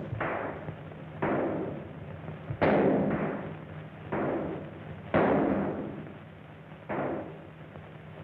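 Gunshots on a 1932 film soundtrack: about six shots, unevenly spaced roughly a second apart, each followed by a long echoing decay, over a steady low hum.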